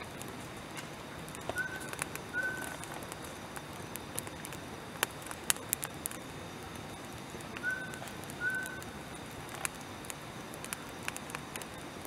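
Longan-wood fire burning in a Snow Peak fire pit, with a steady hiss and scattered crackles and sharp pops, the loudest cluster about five seconds in. Twice, a bird gives a pair of short high call notes.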